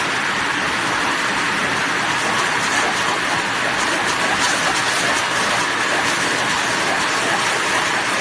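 Forced-air dog dryer blowing a steady, loud rush of air through its hose.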